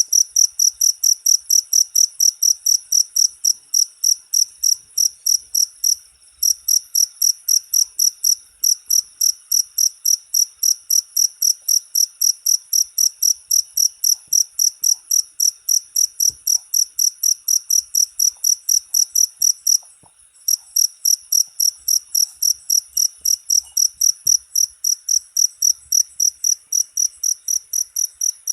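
Cricket chirping in a rapid, even train of high-pitched chirps, with short pauses about six seconds in and about twenty seconds in.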